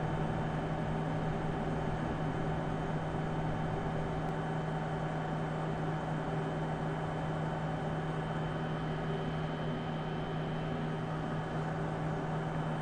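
IGT AVP slot machine running while it reboots: a steady low electrical hum and fan whir with a faint high whine over an even hiss, unchanging throughout.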